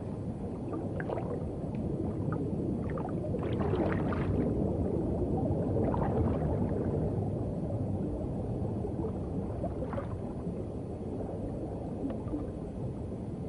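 Underwater ambience: a steady low rumbling wash with occasional soft gurgles and clicks scattered through it.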